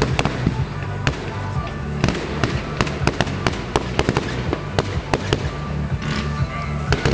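Fireworks display: a fast, irregular run of sharp bangs and crackles as shells burst, over steady background music.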